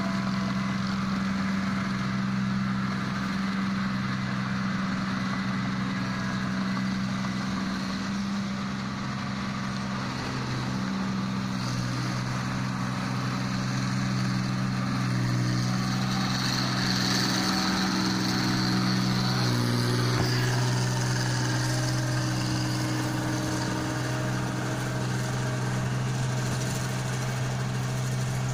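Sperry New Holland combine harvester running steadily while harvesting rice, a low, even engine hum. Its engine note shifts twice along the way.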